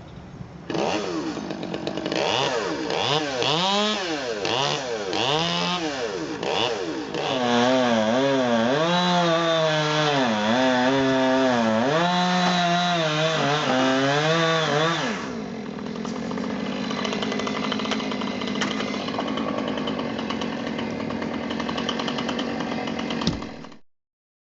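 Chainsaw blipped up and down several times, then held at high revs with its pitch dipping and recovering over and over, as when cutting through wood. About fifteen seconds in it drops to a lower, steady running note, then cuts off abruptly near the end.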